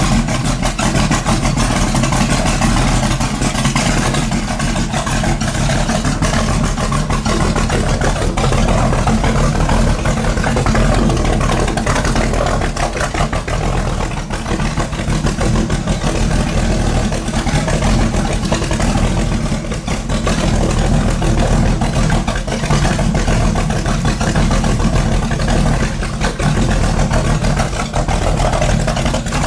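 Large V8 motorcycle engine running loudly and steadily, with a fast, even pulsing.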